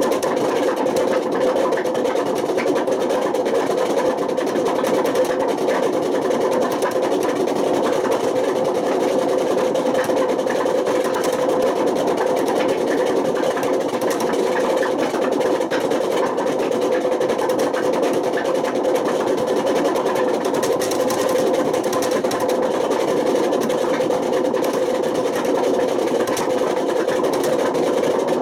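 Panasonic NA127VB6 washing machine running with its drum turning at a steady speed, giving a loud, unchanging mechanical noise: the sound of worn-out drum bearings.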